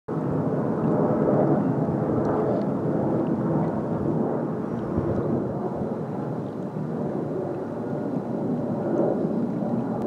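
A steady rumbling outdoor noise, with a few faint ticks about two seconds in.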